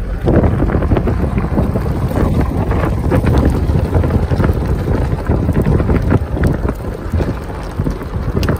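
Wind buffeting the microphone over the low rumble of a Jeep on the move, with scattered crackles and knocks.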